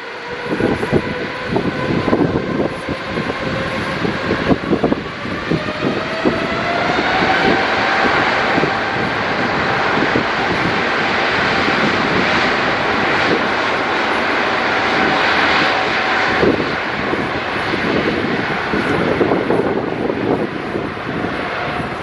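Jet airliner engines running, their whine rising in pitch over a few seconds and then holding steady, over a loud rushing noise. Gusty wind rumbles on the microphone throughout.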